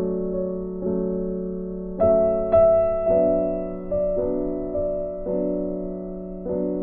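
Background music: slow, soft piano chords, a new chord struck about once a second and left to fade over a held low note.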